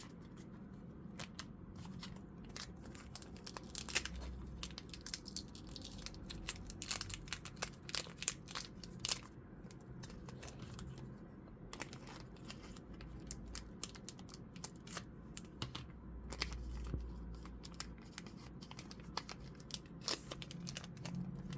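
Foil wrapper of a Pokémon booster pack crinkling and tearing as it is opened, with the cards handled: a long run of irregular short crackles and clicks.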